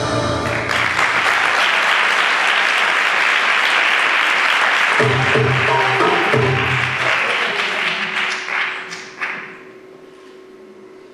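Audience applauding over a pause in the belly-dance music, with a few low notes of the music about five to seven seconds in. The applause dies away about nine seconds in, leaving a faint held tone.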